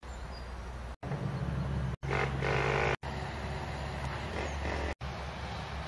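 Steady low rumble of motor traffic, with an engine's hum growing louder between about one and three seconds in. The sound cuts out for an instant about once a second.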